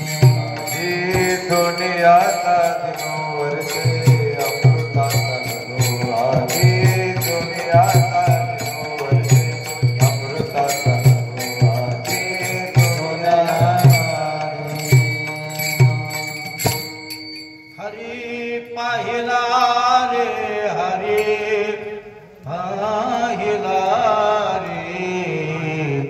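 Devotional kirtan singing: a man's voice sings a melody to a steady beat of small hand cymbals (taal) clashing with low drum strokes. About seventeen seconds in, the cymbals and drum stop and the voice sings on alone.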